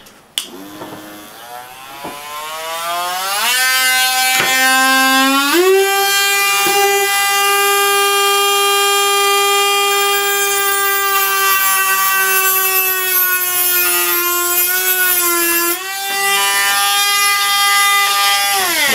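A handheld rotary tool with a small cutting disc spins up with a rising whine over the first few seconds. It then runs at a steady high whine, dipping briefly in pitch a few times as the disc bites into the plastic of a SATA-to-USB converter board. The sound cuts off at the very end.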